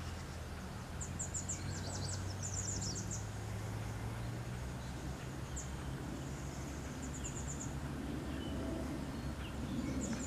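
Outdoor ambience: short bursts of rapid, high-pitched chirping trills from small wildlife come several times over a steady low hum.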